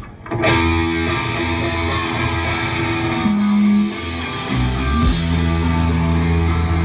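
Rock band starting a slow song live: electric guitar chords ringing out over low held notes.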